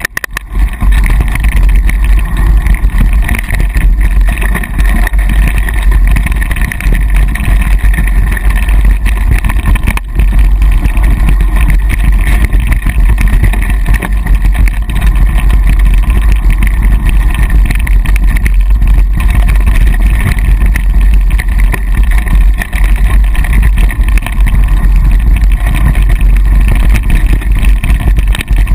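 Wind rushing and buffeting over an action camera's microphone while riding a mountain bike fast down a dirt trail: a loud, steady rush, deepest in the low end.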